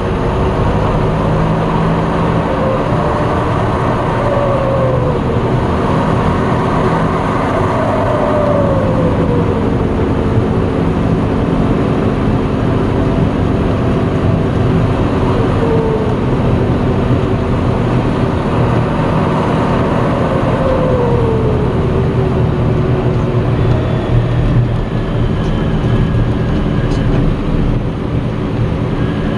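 John Deere 6230 tractor's turbocharged diesel engine running steadily under way, heard from inside the cab. Several times a turbo whistle slides down in pitch as it spools down.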